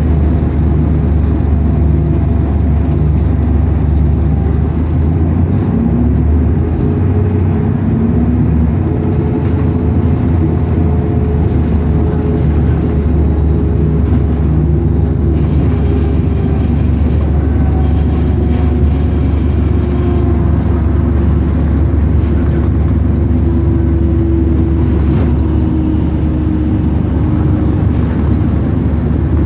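A bus under way, heard from on board: a steady, loud low rumble of engine and road, with a faint whine that slowly rises and falls in pitch as the bus speeds up and slows.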